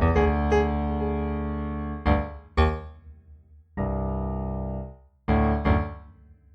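Slow improvised piano music: held chords over a deep bass, with a few single notes struck and left to ring. A last pair of notes fades away near the end.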